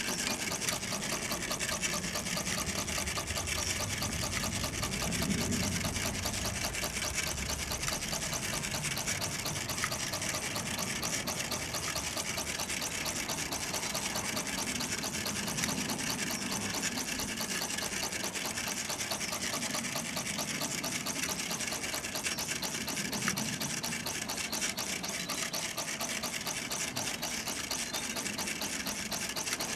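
Burnac Vulcan live-steam model engine with a copper vertical boiler running steadily at speed, giving a fast, even beat.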